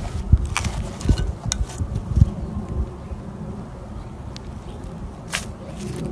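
Floam slime, slime packed with tiny foam beads, being squeezed and pressed by hand. It makes soft low squishing and scattered sharp bead crackles: a few in the first two seconds and one more about five seconds in.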